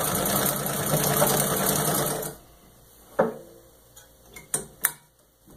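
1907 Singer 66-1 treadle sewing machine stitching at full speed through six layers of denim in a stitch test, a steady fast running that stops suddenly about two seconds in. A few sharp clicks follow as the machine and work are handled.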